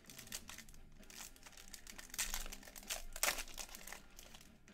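A silver foil pack of Panini Select basketball cards being torn open and crinkled by hand: a run of crackling rustles, loudest around the middle.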